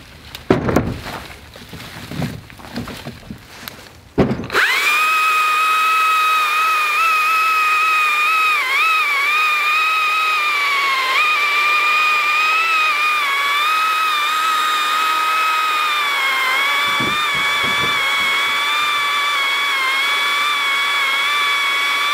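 Stihl MSA 161T battery-powered top-handle chainsaw cutting through a log: a steady, high electric whine whose pitch dips briefly now and then as the chain bites into the wood. Before the saw starts, the first four seconds hold irregular knocks of firewood rounds being loaded into a utility vehicle's bed.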